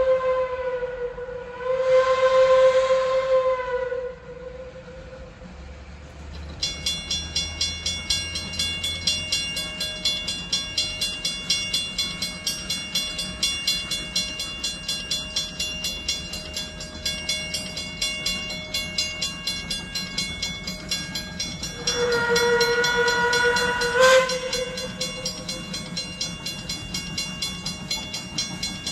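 Narrow-gauge steam locomotive 14A sounds its steam whistle in two blasts at the start, each a single chord. Then comes a steady rhythmic beat of the engine working as it approaches, with another whistle blast of about two seconds later on.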